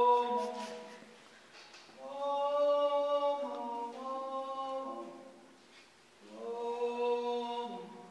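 Voices singing slow, held chords in three phrases with short pauses between them. The middle phrase shifts its chord twice.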